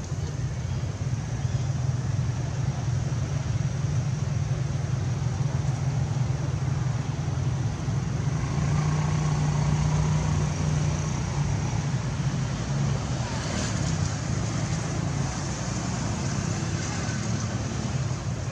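Steady low rumbling background noise with no clear break, with faint voices in the distance.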